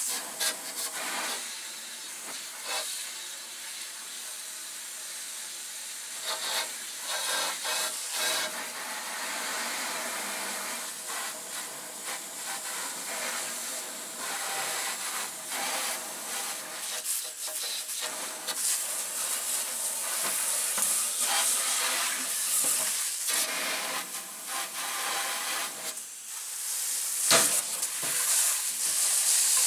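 Water from a garden hose spray nozzle hissing as the jet hits a sheet-metal dog feeder and the ground around it, rising and falling as the spray moves, with brief pauses and loudest near the end.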